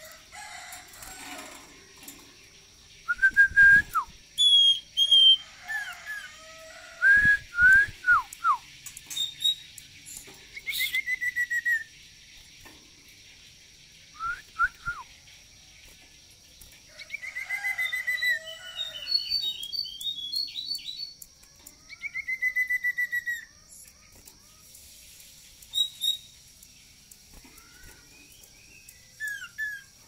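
Common iora (cipoh) singing: clear whistled notes, several sliding sharply downward, broken up by three fast rattling runs of repeated notes, in bursts with short pauses between.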